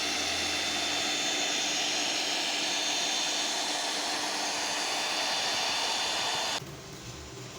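Stick welding arc burning with a steady hissing crackle, which stops suddenly about six and a half seconds in as the arc is broken.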